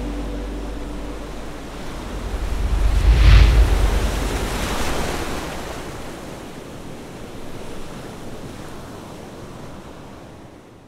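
Ocean surf washing on a shore, with one wave swelling loudest about three seconds in, then the surf slowly fades out.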